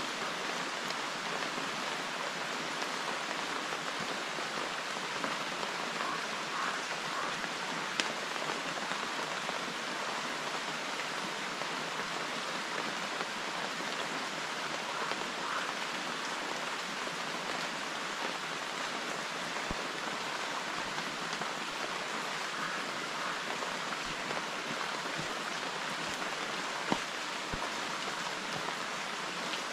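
Heavy rain falling steadily, with two single sharp taps, one about eight seconds in and one near the end.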